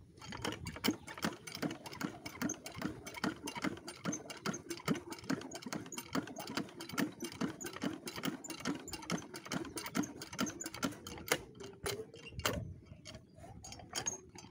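Small diesel water-pump engine just after hand-cranking, running with a rapid, even knock for about twelve seconds, then stalling.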